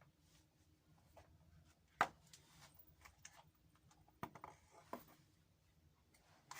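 A few faint clicks and taps over a quiet background, the sharpest about two seconds in and a small cluster a little after four seconds.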